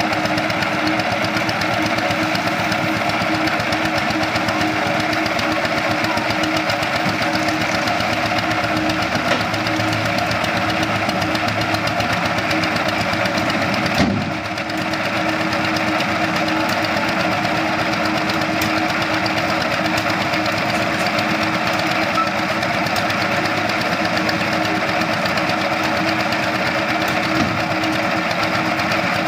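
An engine running steadily, with a single short knock about halfway through.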